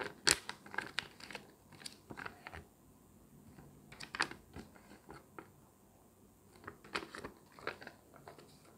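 A thin paper instruction leaflet being folded and unfolded by hand: crisp paper rustling and crinkling in three spells of handling, with the sharpest crackle right at the start.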